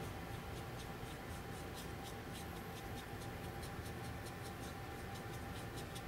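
Paintbrush dabbing and stroking red paint onto a small bird figure: faint, irregular scratchy ticks.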